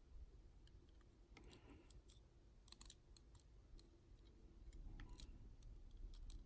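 Faint, scattered small clicks of lock pins and cylinder parts being handled as a pin-in-pin dimple lock is reloaded, with a few clustered ticks around two to three seconds in and again near five seconds.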